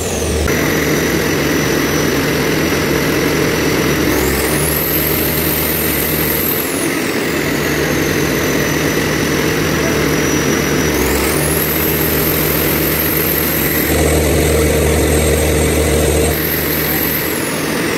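Large diesel generator engine running steadily, with a high whine that climbs and then slowly falls away twice.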